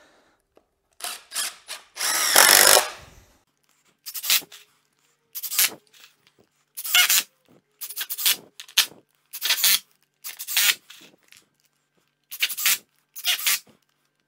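Cordless drill driving wood screws through a pressure-treated 2x4 cleat into 2x6 boards. It runs once for about a second near the start, then in many short bursts, often two close together, as each screw is driven home.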